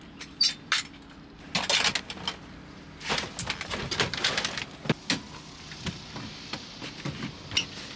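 A drum set being packed away: knocks, clicks and stretches of scraping and rustling as drum parts are handled and stowed, over a faint steady low hum.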